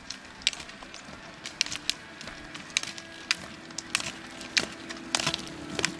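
Roller skiers skating on asphalt: sharp, irregular clicks of carbide pole tips striking the road, and a steady hum of roller-ski wheels that comes in about two seconds in and grows louder as a skier passes close.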